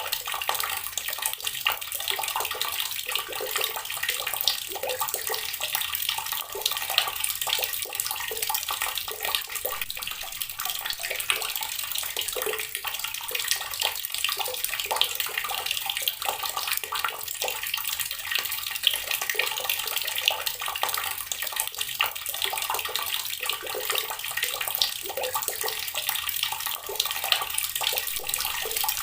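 Water running steadily from a tap and splashing into the water below, a continuous hiss full of small splashes.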